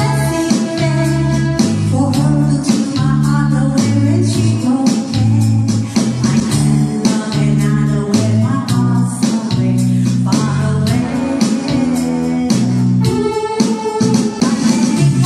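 A woman singing a pop ballad into a microphone, backed by keyboard accompaniment with a steady beat.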